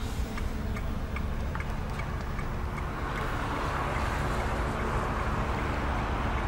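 A 2014 Brilliance H530 idling, a steady low rumble with a light, even ticking about two to three times a second. A hiss swells up about three seconds in.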